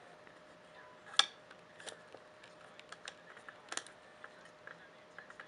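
Small scattered clicks and ticks of a tiny Tech Deck screwdriver and screw working against a plastic sunglasses hinge, the sharpest click about a second in and another a little before the end.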